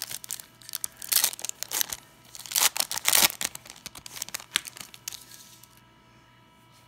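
Foil wrapper of a Topps Opening Day baseball card pack being torn open and crinkled by hand, in a run of sharp rustling bursts that stop about five seconds in.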